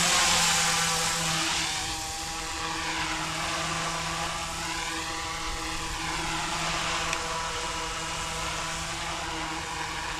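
Goosky E2 electric RC scale helicopter hovering and drifting low over grass: the steady whine of its electric motor and the buzz of its spinning rotors. It gets a little quieter about a second and a half in as it moves away, and its tone swells and fades slowly as it drifts.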